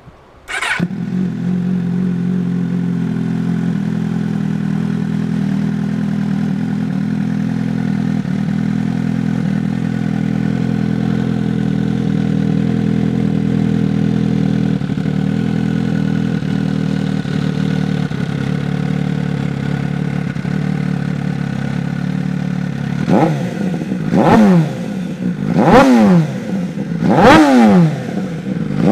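MV Agusta F4's inline-four engine, breathing through a Hurricane Evolution Ox-Race aftermarket exhaust, catches about half a second in and idles steadily. Near the end it is revved in four quick throttle blips, each rising and falling in pitch.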